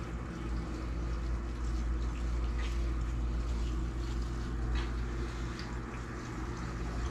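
Newly installed hydronic boiler system running: a steady low hum from the circulator pumps and boiler, with faint water trickling sounds in the copper piping.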